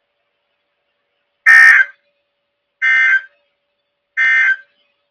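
Three short bursts of NOAA Weather Radio SAME digital data tones, each under half a second and about a second apart, the first the loudest: the end-of-message code that closes a just-read warning broadcast.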